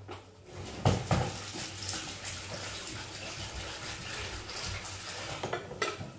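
Water running steadily into a kitchen sink, with a couple of knocks about a second in, and stopping shortly before the end.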